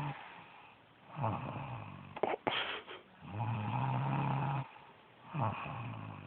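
A woman snoring, breath rasping in and out. There is a brief sharp catch in the breathing about two seconds in, and one long, steady buzzing snore a little past the middle.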